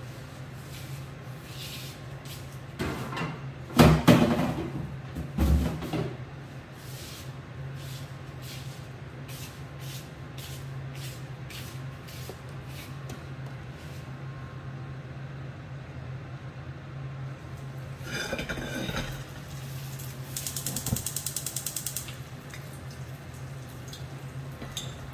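Loud knocks and clatter of cookware on a gas hob, then a scrape as the frying pan is shifted on the grates, followed by a gas hob's igniter ticking rapidly for about a second and a half as the front burner is lit. A steady low hum underlies it all.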